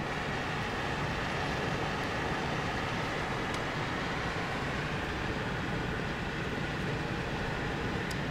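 Steady road noise of a moving car heard from inside the cabin: tyre and engine rumble with wind, at an even level. Two faint clicks come about three and a half seconds in and near the end.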